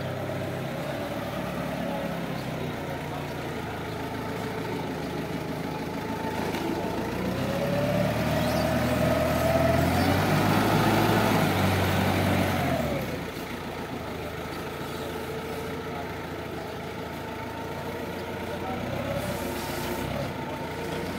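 Linde forklift's engine running steadily. For several seconds in the middle it revs up louder, with a whine that rises and then falls, and then it settles back to a steady run.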